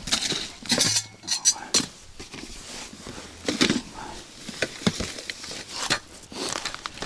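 Irregular clatter, knocks and clinks of ice-fishing gear being handled and packed: a plastic tackle box, a bucket and a metal ice auger knocked against one another.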